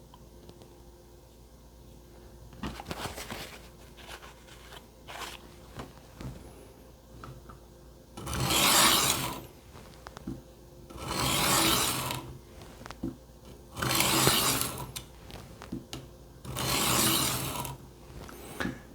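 Kitchen knife blade drawn slowly across the coarsest stone of a Work Sharp Benchstone wet with soapy water: four long gritty scraping strokes, evenly spaced, after a few light taps and scuffs, as the edge is ground to raise a burr.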